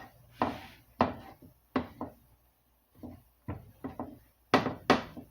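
Kitchenware knocking and clattering, about ten sharp knocks in uneven succession, the loudest pair about four and a half seconds in.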